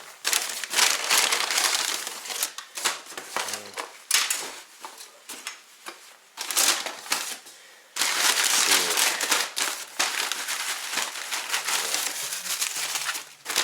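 Takeout bags being opened and unpacked by hand, crinkling and rustling in irregular bursts, with a quieter stretch in the middle.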